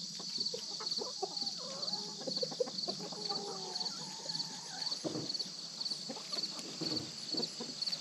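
A flock of chickens clucking and making soft wavering calls while they forage. Over them, insects keep up a steady high chirping that pulses about twice a second.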